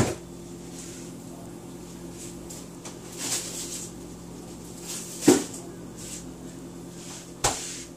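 Kitchen clatter from someone moving about out of view: three sharp knocks, one at the start, one about five seconds in and one near the end, with a softer rustle around three seconds, over a steady low hum.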